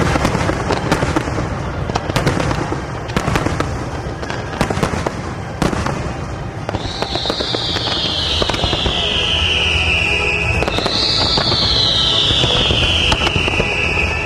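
Fireworks cracking and popping, many sharp reports in quick succession, over music. In the second half a high tone glides slowly downward twice, each glide about four seconds long.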